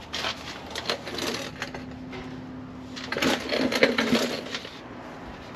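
Plastic transmission wiring-harness connector clicking and rattling as it is worked loose by hand, in two flurries of quick clicks, the louder one about three seconds in.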